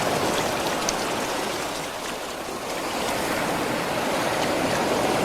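Steady rushing water, like a stream or surf, with a slight dip about two seconds in.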